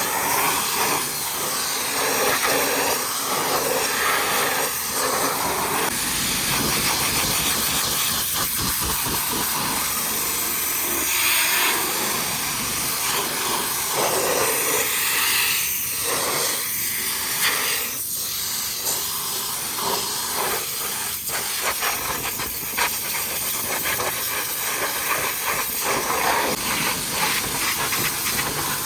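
High-pressure washer jet spraying water onto a truck, a loud steady hiss that swells and thins every few seconds as the spray moves across the surfaces.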